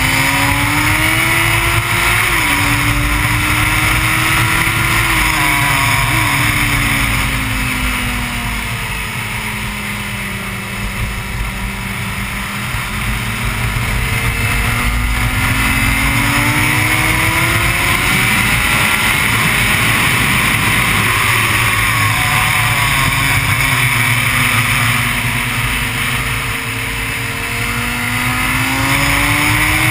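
Honda CBR600 inline-four engine revving on track, its pitch climbing with quick drops at upshifts about two and six seconds in, then falling away twice under braking for corners and climbing again. Heavy wind rush on the onboard microphone runs under it.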